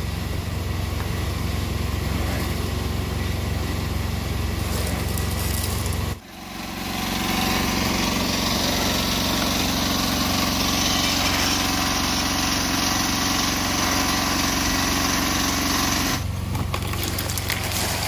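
Small engine running steadily, of the kind that drives a portable concrete mixer, with a constant low hum. The sound drops sharply about six seconds in, comes back with more hiss on top, and returns to the plain hum near the end.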